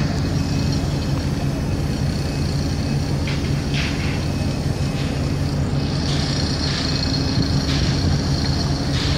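Mobile crane's diesel engine running steadily during a lift, a constant low drone with a high whine over it. A few short, sharp metallic clinks come through from about three seconds in.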